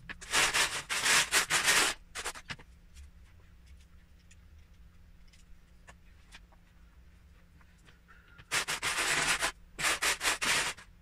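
Loose Lego bricks being rummaged by hand in a plastic storage tub, a dense clattering rustle of small plastic pieces. It comes in two spells, one of about two seconds near the start and another in the last few seconds, with only a few faint clicks between.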